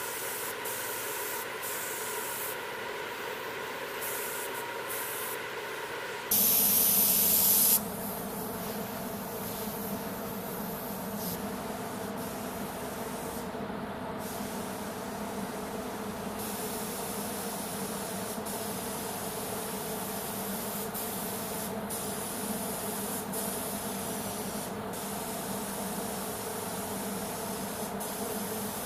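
Compressed-air paint spray gun hissing over the steady hum of paint-booth fans. One loud, sharp blast of spray hiss comes about six seconds in and lasts about a second and a half.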